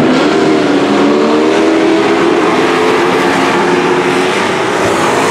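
Engines of several dirt-track racing trucks running hard at speed on the oval, overlapping in a loud, steady drone whose pitch wavers slightly as they work through the turns.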